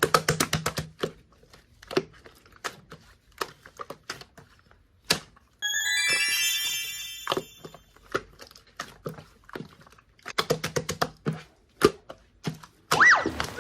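Slime being pressed and squished: a string of quick sticky clicks and pops. A sparkling chime-like sound effect comes in about six seconds in, and a wobbly gliding sound effect near the end.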